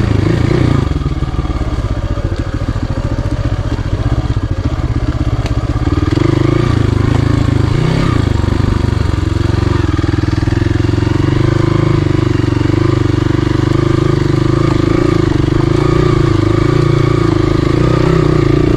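Hero Xpulse 200 single-cylinder motorcycle engine running at low speed as the bike is ridden over a rough dirt trail. Somewhat quieter for the first few seconds, then pulling steadily louder from about six seconds in.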